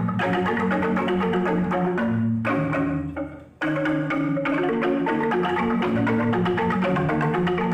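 Balinese bamboo music: jegog and tingklik bamboo xylophones playing fast, dense runs of notes, with ceng-ceng cymbals. About two and a half seconds in, the music fades low, then comes back in suddenly a second later.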